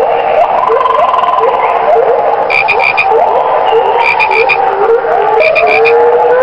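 A dense frog chorus: many frogs giving short, rising calls that overlap. Three times, about a second and a half apart, a higher-pitched call of four quick notes sounds over the chorus.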